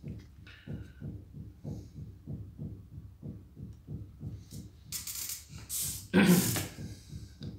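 Handling noise of a handheld diamond tester being picked up: a loud rustling, knocking burst about five seconds in. Under it runs a steady low pulsing of about four beats a second.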